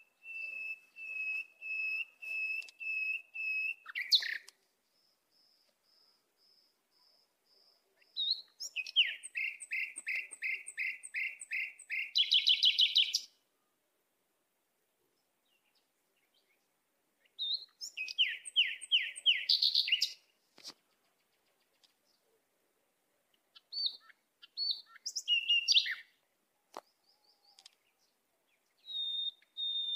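A songbird singing in separate phrases with silent gaps between them: a series of clear whistled notes at about two a second, then fast runs of chirps ending in a buzzy trill, and a steady whistled series again near the end.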